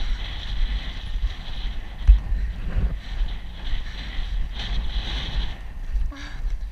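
Wind buffeting the microphone with the low, irregular thudding of a horse's hooves moving fast over turf.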